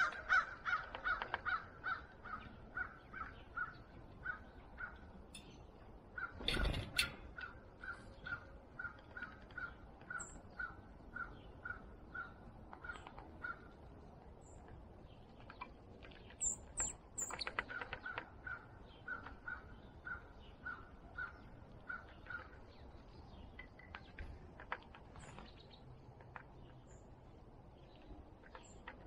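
A bird calling a long, even series of single notes, about two to three a second, pausing for a few seconds midway and then starting again. A dull thump comes about six and a half seconds in, and a few high, thin chirps from small birds follow later.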